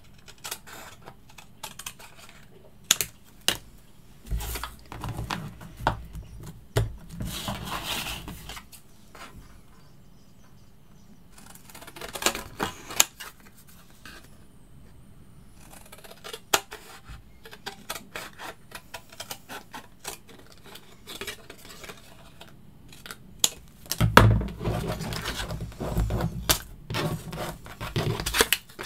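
Scissors snipping through card, trimming strips by hand in short cuts, with card and paper rustling and being picked up and set down, busiest near the end.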